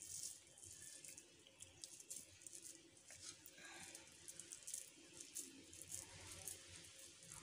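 Faint, moist squishing and crackling of hands pressing a spiced fish mixture into balls.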